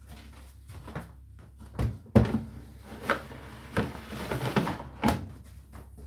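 Plastic condenser water container of an Indesit IDC8T3 condenser tumble dryer being slid back into its slot in the top panel: a series of plastic knocks and scrapes, the loudest a little over two seconds in.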